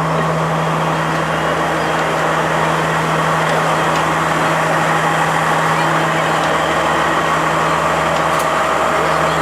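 Large diesel engine idling steadily, a constant low hum under an even mechanical rumble.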